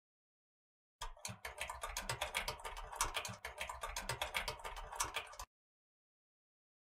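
Typing on a computer keyboard: a fast run of key clicks that starts about a second in and stops abruptly about four and a half seconds later.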